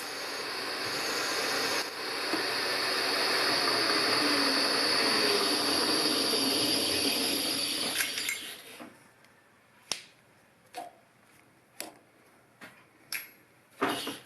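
Drill boring out a broken-bolt hole in a cast iron exhaust manifold to 8.3 mm, the tapping size for a Helicoil thread insert. It runs steadily and stops about eight seconds in, followed by several sharp metallic clinks.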